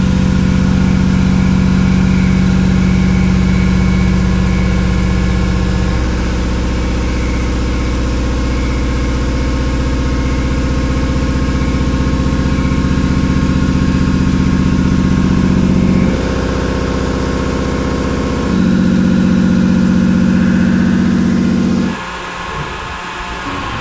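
Large inserted thread mill, almost 2 inches across with five inserts, cutting four-pitch internal threads in a 4140 steel bore: a loud, steady machining hum made of several held tones. The tone shifts a few times and drops quieter near the end.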